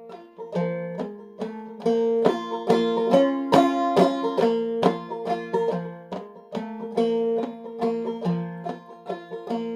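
Five-string banjo played clawhammer style in sawmill tuning, a slow tune in 3/4 with picked melody notes and brushed strums over a ringing drone string.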